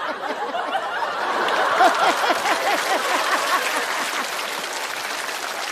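A studio audience laughing and clapping at a stand-up joke, with many voices chuckling at once over a patter of applause.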